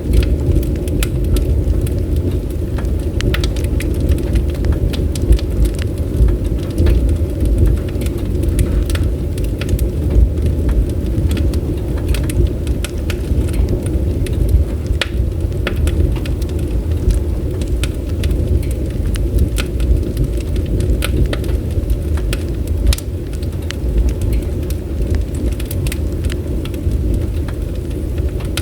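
Bonfire burning: a steady low rush of flames with frequent sharp, irregular crackles and pops from the burning wood.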